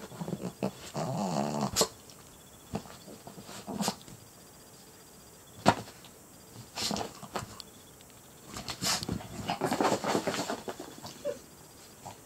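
Small dog growling playfully in short bursts while excitedly rubbing and rolling on a blanket and rug, with rustling of fabric and a few sharp sounds between.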